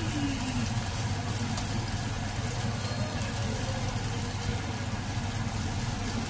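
Blended garlic, shallot and chili paste sizzling in hot oil in a wok as a silicone spatula stirs it, over a steady low hum.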